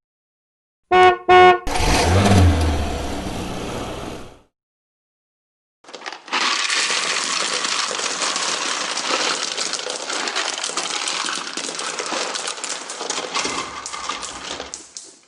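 A car horn honks twice in quick short beeps, followed by a car engine sound lasting a few seconds, typical of a toy-car sound effect. After a short silence a long, steady rushing noise follows.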